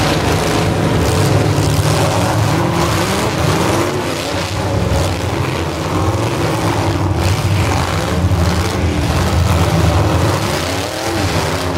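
Several demolition derby cars' engines running loud together, revving up and down as the cars push and ram one another.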